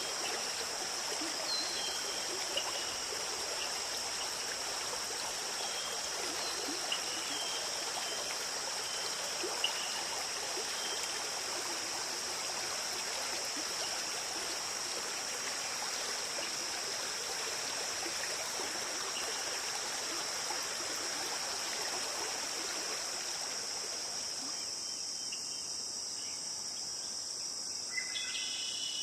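A stream of running water, with a steady high insect drone above it. Near the end the water fades away, leaving the insect drone and a few short high chirps.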